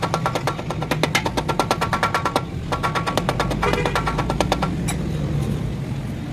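Rapid metallic clicking at about ten clicks a second, each with a short ring. It comes in two runs, with a brief break about two and a half seconds in, and stops a little past halfway. A steady low hum runs underneath throughout.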